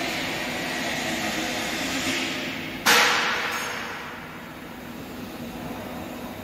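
Steady hum and noise of factory machinery, broken about three seconds in by a sudden loud burst of noise that echoes and fades over about a second.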